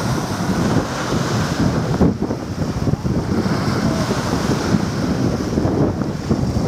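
Strong wind buffeting the microphone: a loud, irregular, gusting rumble with a hiss over it.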